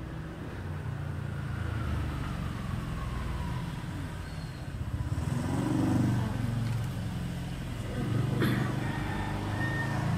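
Motorcycles passing in the street, the engine noise swelling to its loudest about six seconds in, with a sharp click about eight and a half seconds in.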